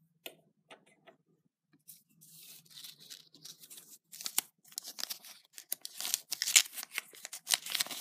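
A wrapper being crinkled and torn by hand: sparse crackles at first, growing into a dense run of crinkling over the last few seconds.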